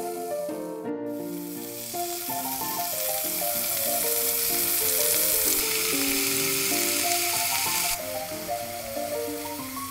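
Pork slices sizzling as they sear in hot oil in a pan, with a brief break about a second in, loudest in the middle and falling away sharply near the end. Light instrumental background music plays over it.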